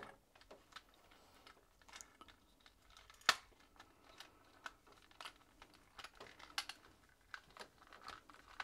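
Faint, irregular plastic clicks and taps as the panels and tabs of a Rescue Pioneer JH01L transforming robot figure are pushed and lined up into ambulance mode, with one louder snap about a third of the way in.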